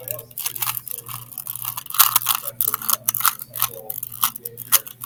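A regular Rubik's cube being turned by hand during a solve: a quick, irregular run of plastic clicks and clacks, several a second, over a steady low hum.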